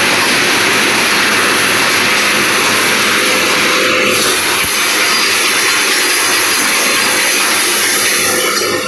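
Steel wire mesh welding machine running, a loud, steady machine noise like a dense hiss with a faint hum beneath it and no distinct strokes.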